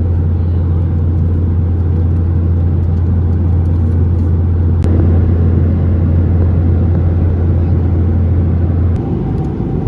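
Steady cabin noise of a Boeing 737-800 in flight: the rumble of engines and airflow, with a strong low hum that drops away about nine seconds in, and a single faint click near the middle.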